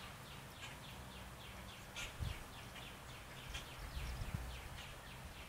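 Faint bird chirping in a fast, even run of short falling notes, about four a second, over a low rumble, with a soft thump about two seconds in.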